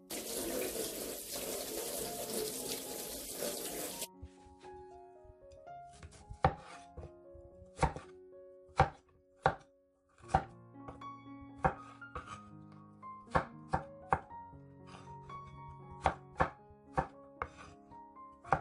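Water running into a stainless-steel sink for about four seconds, cut off abruptly. Then a kitchen knife cuts a peeled broccoli stem on a wooden chopping board: single sharp chops, irregular at roughly one or two a second.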